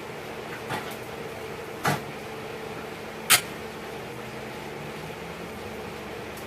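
Three short, sharp knocks, the last the loudest, over a steady hum.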